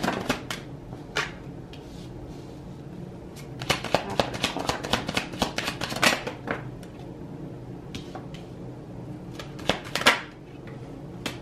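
A deck of tarot cards being shuffled by hand: quick riffling, clicking spells a few seconds apart, the loudest near the end.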